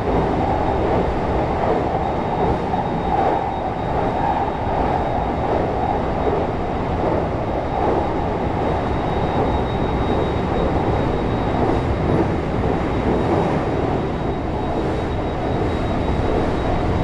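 Steady running noise of a JR 223 series electric train, heard from inside the front car, with a faint high steady tone above it.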